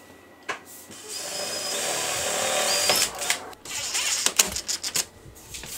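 Cordless drill/driver driving a screw into the stove pipe's ceiling connector: about two seconds of steady motor whirring, then several sharp clicks and knocks.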